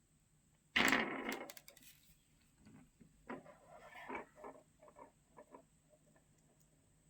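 Small tools and phone parts being handled on a work surface during phone repair: a short clatter about a second in, then a run of light, irregular clicks and taps.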